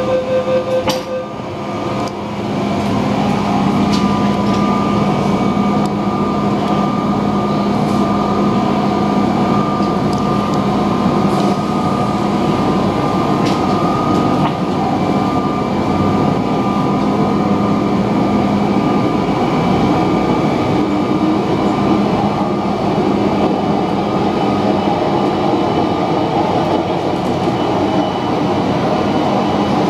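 Metro-Cammell electric multiple unit pulling away and running, heard from inside the car. A steady motor hum and a higher whine sit over the rumble of wheels on rail, and it gets louder about two to three seconds in as the train picks up speed.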